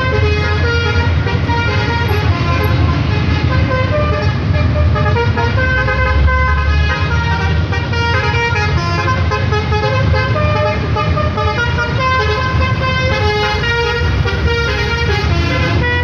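A bus's basuri 'telolet' musical horn playing a continuous run of quick melodic notes, over a steady low rumble of engines and traffic.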